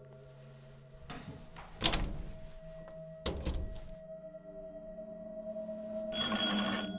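Two heavy thumps on a metal door about a second and a half apart, then near the end an electric doorbell buzzer sounding for under a second as the wall button is pressed. A low steady musical drone runs underneath.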